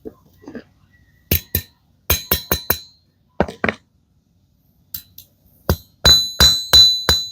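Metal being struck with sharp, ringing clinks: a few irregular taps in pairs and small groups, then from about six seconds a steady run of ringing strikes, about three a second.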